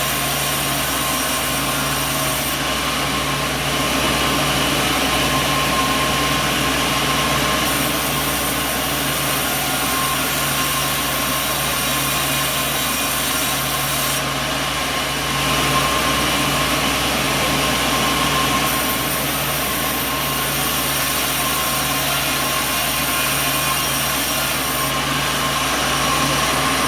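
Sawmill machinery running steadily: a continuous dense mechanical noise with a low hum, its upper hiss shifting abruptly every few seconds.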